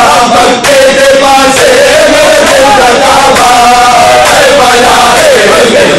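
A nauha (Shia mourning lament) chanted loudly by many male voices in unison, with a gliding sung melody. Rhythmic chest-beating (matam) keeps time beneath it.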